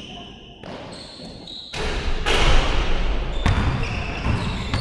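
Basketball bouncing and sneakers squeaking on a gym floor, with scattered knocks and a louder noisy stretch about two seconds in.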